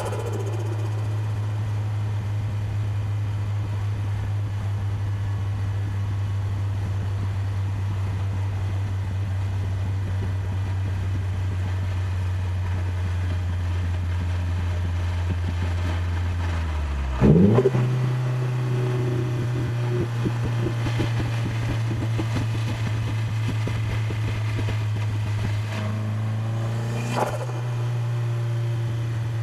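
Nissan Silvia S14a's turbocharged four-cylinder engine running at a steady cruise, a low even drone. About 17 seconds in there is a short loud burst as the revs sweep down and back up, after which the engine holds a slightly higher steady note; a smaller burst comes near the end.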